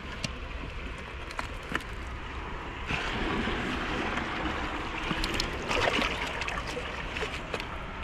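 Seawater washing and trickling among wet shoreline rocks, swelling about three seconds in and easing off near the end, with scattered sharp clicks and knocks of stones.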